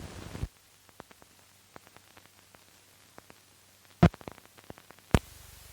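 Crackle from an old film's optical soundtrack: the noisy track cuts off about half a second in, leaving a low hum and faint scattered clicks, then two loud pops, the second one bringing in a steady hiss.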